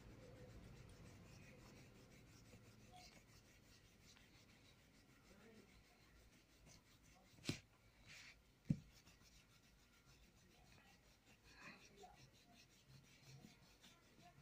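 An eraser rubbing over drawing paper, faintly, to remove pencil lines, with two sharp knocks about a second apart near the middle.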